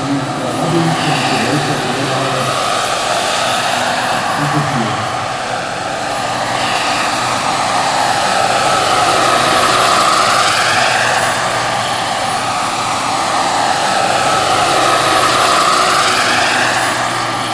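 Turbine-powered scale model helicopter (Jakadofsky Pro XL turbine, 3.5 m main rotor) in flight, a steady turbine whine mixed with rotor noise. It grows louder with its pitch bending as it passes close, twice: about ten seconds in and again near the end.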